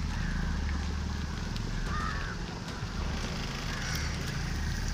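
Outdoor ambience: a steady low rumble on the microphone with a few short bird calls scattered through it.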